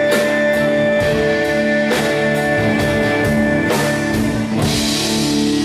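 Live band playing an instrumental passage: held lead guitar notes over bass and a drum kit, with a cymbal crash near the end.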